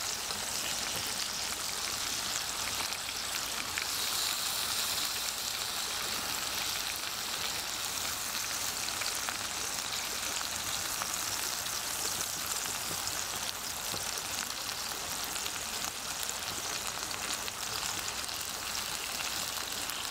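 Ribeye steak frying in rendered beef fat in a pan: a steady sizzle with fine crackles.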